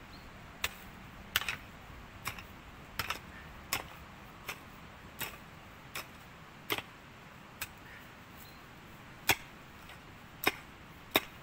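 Hand digging tool striking stony soil while digging down to a buried water pipe: sharp clinks about once a second, uneven in spacing and strength, with a short pause and the loudest strikes near the end.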